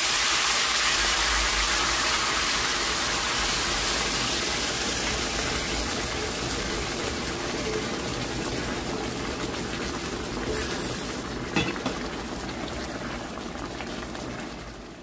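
Chile and tomato sauce sizzling as it is poured from a frying pan into a hot pan of browned chops, the sizzle slowly dying down. A few light knocks near the end.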